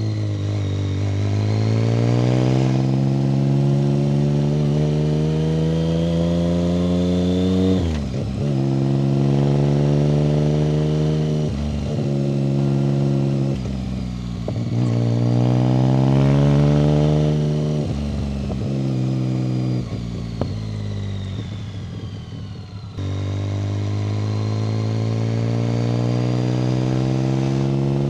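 BMW K75 three-cylinder motorcycle engine pulling up through the gears. Its pitch rises steadily, breaks at each shift and picks up lower again, several times over. Past the middle it eases off with falling pitch for a few seconds, then pulls away and climbs again.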